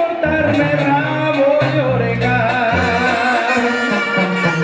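Music with singing: a wavering, vibrato melody over held bass notes and a steady ticking beat.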